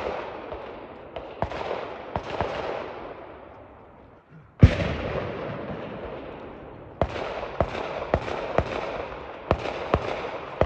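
Scattered small-arms gunshots, about a dozen at uneven spacing, each followed by a rolling echo. There is a lull a few seconds in, then one much louder, closer shot a little under halfway through.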